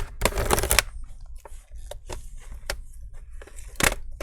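Plastic bottom cover of a Dell Inspiron 3593 laptop being pried off with a plastic prying tool: a string of sharp plastic clicks and snaps as the cover comes free, with a dense clatter of them shortly after the start and one loud click near the end.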